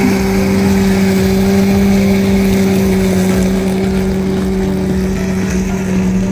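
A machine motor running at one steady pitch: a constant hum over an even hiss.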